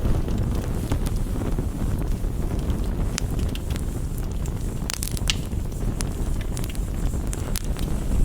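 A crackling campfire mixed with rain on a window: a steady low rush with scattered, irregular sharp pops and ticks.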